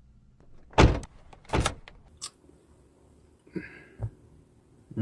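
Car door and cabin handling sounds: two loud knocks, the first just under a second in and the second about a second and a half in, then a light click, a brief rattle and a soft thump near the end.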